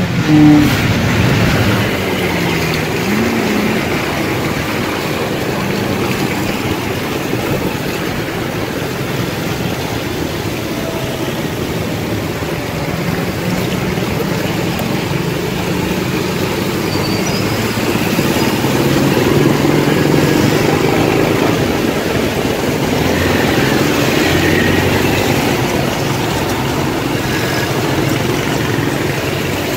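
Motor scooter engine running while riding through city traffic, its pitch shifting up and down with speed, over a steady rushing noise.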